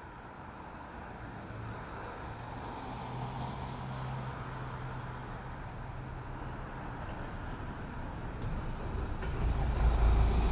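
A motor vehicle's engine drawing nearer: a steady low hum that slowly grows louder, with a heavier low rumble coming in near the end.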